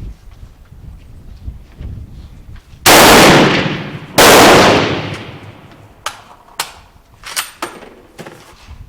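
Two rifle shots about a second and a half apart, each ringing out and fading over about a second, followed by a few light clicks.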